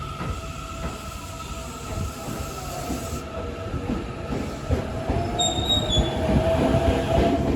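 Tokyo Metro 7000 series electric train pulling away. Its running gear rumbles under a steady high whine, and a second whine rises in pitch from about five seconds in as the train picks up speed.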